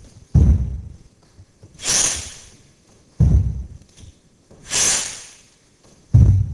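One-arm kettlebell jerks: a heavy thud three times, about three seconds apart, as the kettlebell drops back into the rack position against the chest, with a loud, sharp breath between thuds while the bell is held overhead.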